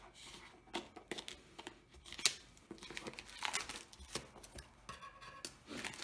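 Double-layered plastic wrapping on a parcel being torn open by hand: irregular crinkling and crackling with sharp snaps, the loudest about two seconds in.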